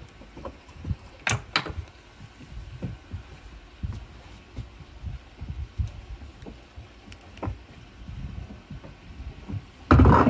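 A bowling ball rolls back along a homemade ball-return rail with irregular low thuds and knocks, plus a couple of sharp clicks. Near the end a ball is released onto the homemade lane with a sudden loud thud and goes on rolling with a heavy rumble.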